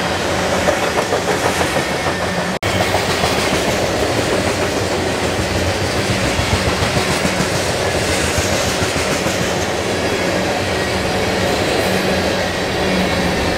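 Freight train of tank cars rolling past close by: a steady rumble of steel wheels on rail with a rhythmic clickety-clack of wheels over rail joints. The sound cuts out for an instant about two and a half seconds in.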